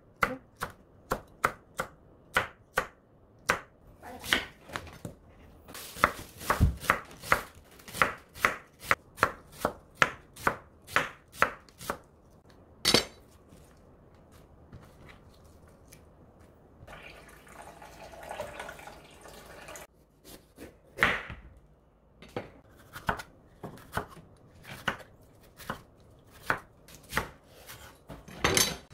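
Chef's knife chopping vegetables on a wooden cutting board: a run of sharp knocks, about two a second and quicker in the middle, slicing green chilies, onion and red bell pepper. A pause with a few seconds of soft, noisy handling comes about two-thirds in, then the chopping starts again.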